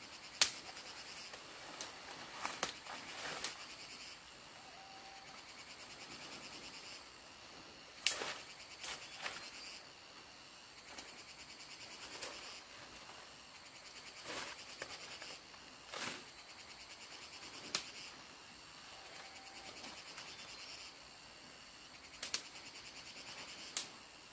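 Leafy tree branches being snapped and torn off by hand: sharp cracks, the loudest about half a second in, around 8 seconds and twice near the end, each with a rustle of leaves. Under them runs a steady, pulsing drone of insects.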